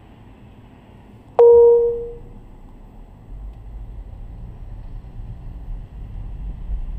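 A single loud ding: one pitched tone with a few overtones that starts sharply and rings down over about a second. It sits over low vehicle road noise, and a low rumble grows louder a couple of seconds later.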